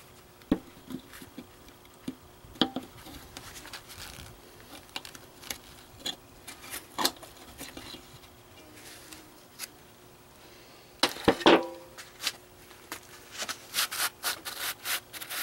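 Metal clicks, scrapes and clinks as a broken recoil starter spring is pried and pulled out of its aluminium housing with a hand tool. There is a loud cluster of clinks a little after the middle and a quick run of clicks near the end as the coiled spring comes free.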